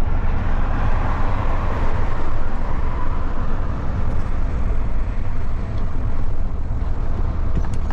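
Truck diesel engine on a straight-through exhaust ("escape diretão") rumbling steadily under way, heard from inside the cab, with road and wind noise over it that is loudest in the first few seconds.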